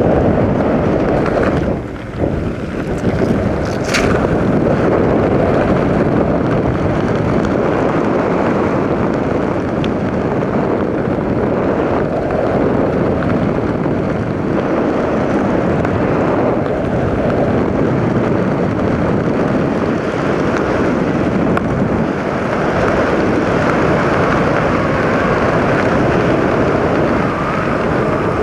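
Helicopter in flight heard from aboard: a loud, steady rush of engine and rotor noise mixed with wind buffeting the microphone.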